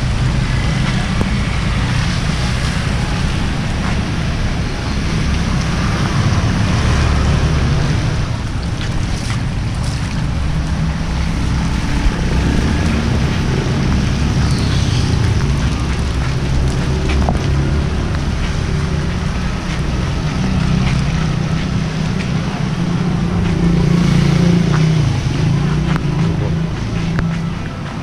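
Heavy rain pouring down: a steady hiss with a loud low rumble underneath that swells briefly near the end.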